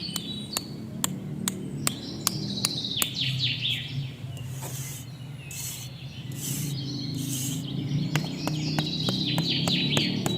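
Birds chirping in short descending phrases, with sharp taps about once a second that come faster near the end, over a low steady hum.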